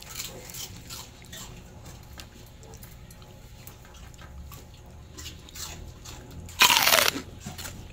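A husky crunching a crispy fried chip: one loud crunch of well under a second near the end, after several seconds of only faint scattered clicks.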